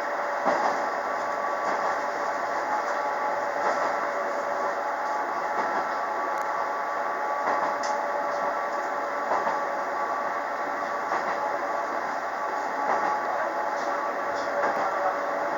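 KiHa 47 diesel railcar running along the line, heard from inside the car: a steady mix of engine and wheel-on-rail noise with a constant hum, broken by a few light clicks.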